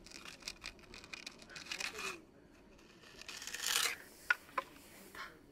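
Packed snow crunching and scraping inside a plastic duck-shaped snowball maker as it is squeezed and worked against wooden deck boards. A louder gritty scrape comes a little before four seconds in, then two short sharp clicks as the mould is opened.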